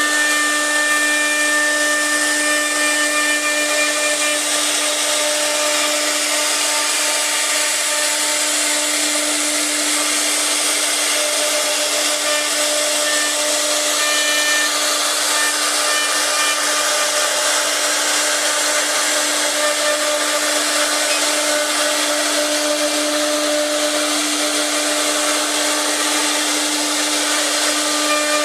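CC-B1325B CNC router's spindle running steadily with a constant whine while the bit cuts wood with an even hiss.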